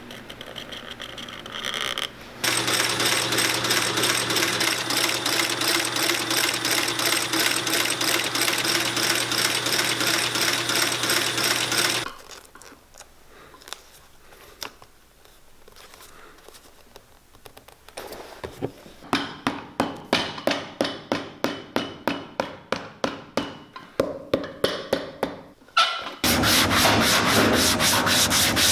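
Sanding and rasping on a leather shoe sole: a steady sanding run for about ten seconds, a quieter spell, then quick rasp strokes at about three a second, and steady sanding again near the end.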